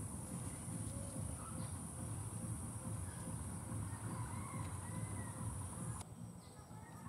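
Outdoor ambience with faint bird calls over a steady low rumble and a steady high hiss; the hiss cuts off suddenly about six seconds in.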